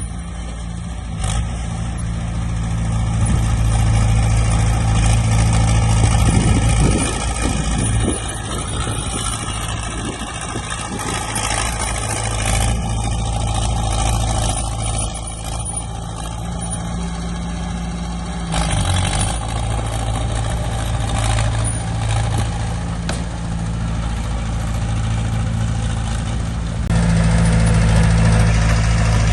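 Heavy diesel engine of earthmoving machinery running steadily under varying load, getting louder near the end.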